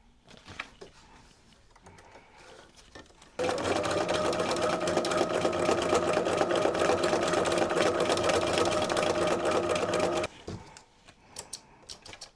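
Electric sewing machine running at a steady fast speed for about seven seconds, needle stitching through paper in free-motion mode with a free-motion quilting foot and the feed dogs lowered. It starts about three seconds in and stops suddenly, with light clicks of paper being handled before and after.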